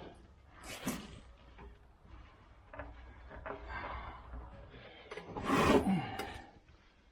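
Irregular scraping and rubbing of parts being handled while working on a riding lawn mower, with a louder, longer scrape about five and a half seconds in.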